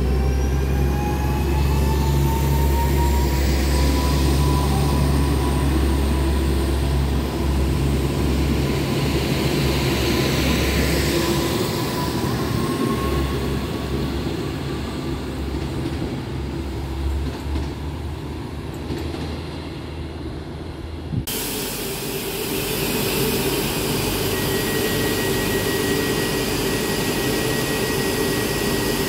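Koleje Dolnośląskie multiple-unit train moving off with a low rumble and a whine rising in pitch, both fading as it draws away. After an abrupt cut, a Koleje Dolnośląskie SA135 diesel railcar runs steadily while standing at the platform, and a steady high tone comes in a few seconds later.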